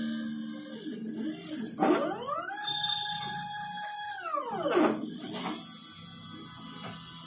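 Stepper motors of a DIY CNC thermocol cutting machine whining as the gantry makes a move. The pitch rises about two seconds in, holds steady for about a second and a half, then falls away, with a click at the start and at the end of the move. A lower steady hum runs underneath.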